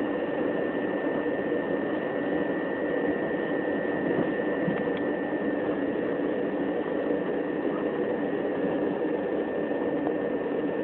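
Steady running noise inside a Class 375 Electrostar electric multiple unit travelling at an even speed: a constant rushing hum with a thin, steady high whine over it.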